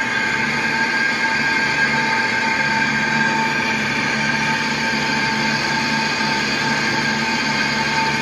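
A lathe skims the inside of a spinning cast-iron truck brake drum with a boring bar. The tool on the braking surface gives a loud, steady squeal of several high tones over the lathe's running noise.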